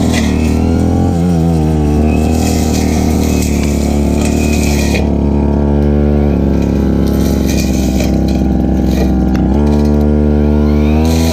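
Stihl FR3001 backpack brush cutter's two-stroke engine running hard while cutting grass. Its pitch wavers early on and shifts up and down a couple of times as the load changes.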